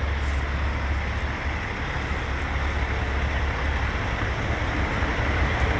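Heavy diesel engines running at a road milling and paving job, a steady low rumble that grows slightly louder near the end.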